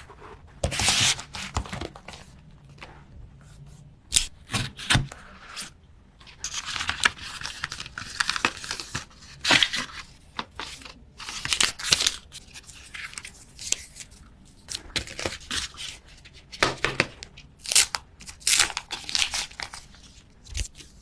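Phone packaging being opened by hand: repeated tearing and crinkling of plastic wrap and paper, in short bursts with a few light knocks.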